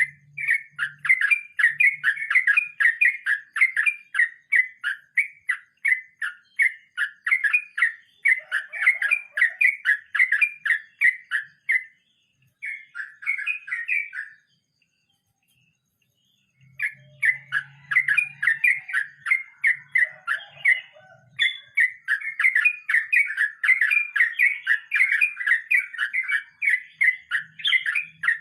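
Yellow-vented bulbul singing its rolling song: long runs of quick, repeated ringing notes, about three a second, with a pause of about two seconds midway before the song resumes.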